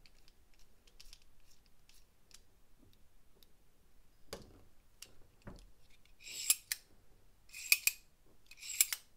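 A precision screwdriver turning a small screw into a metal knife handle with faint ticks and a couple of soft knocks, followed by four short, sharp metal-on-metal clicks about a second apart as the reassembled gravity knife is handled.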